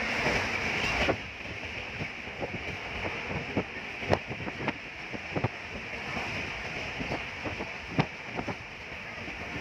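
Running noise of a moving passenger train heard from inside a coach by the window: a steady rush of wind and rumble with scattered sharp clicks and knocks. It is louder for the first second, then settles, with two sharper knocks about four and eight seconds in.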